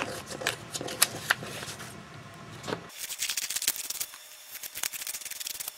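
Scissors cutting through a sheet of paper along a traced outline: a few light clicks and paper handling at first, then from about halfway in a quick run of crisp snips and paper rustle.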